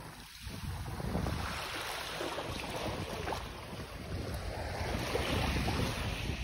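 Sea waves washing ashore, with wind buffeting the microphone in a steady low rumble.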